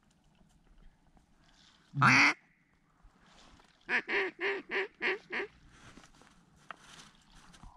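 Mallard quacks: one loud quack about two seconds in, then a quick run of six quacks at about four a second.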